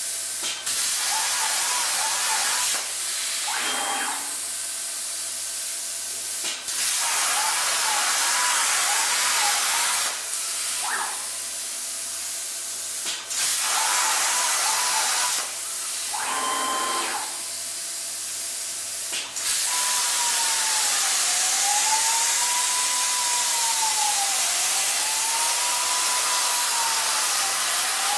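Unimig Razor Cut 45 plasma cutter at about 26 amps cutting 16-gauge mild steel on a CNC table: a loud, steady hiss of the arc and air. A whining tone rises and falls in pitch through each cut, quickly on the first three short cuts and slowly on the longer last one, which starts about two-thirds of the way in. Each cut begins with a sharp crack as the arc fires, and between cuts the hiss drops lower.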